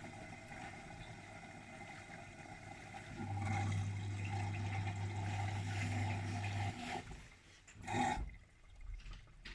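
Gorenje WaveActive front-loading washing machine running in test mode with wet snow in the drum: water trickling and sloshing, a steady low hum from about three seconds in that cuts off near seven seconds, then a single knock about a second later.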